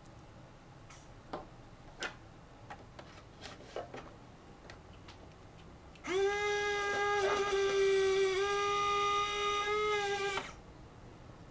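A few light clicks and taps of parts being handled, then about six seconds in the motorised retractable nose landing gear of a large RC jet model runs: a steady, high motor whine for about four and a half seconds that stops suddenly as the gear moves out of its bay.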